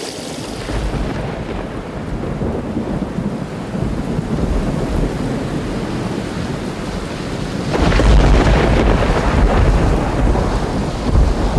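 Thunder rumbling over steady rain in a played-back nature soundscape recording, with a louder, longer roll of thunder starting about two-thirds of the way through.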